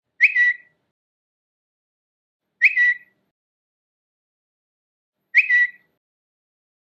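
Twitter notification sound: a short chirp that glides quickly up into a held high note, about half a second long. It plays three times, roughly two and a half seconds apart, with silence between.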